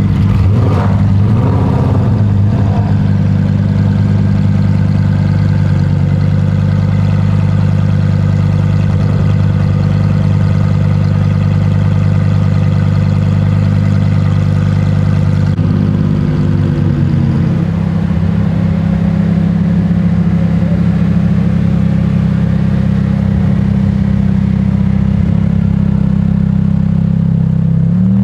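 A car engine idling steadily, with a brief wavering in pitch in the first couple of seconds and the idle settling a little lower about sixteen seconds in.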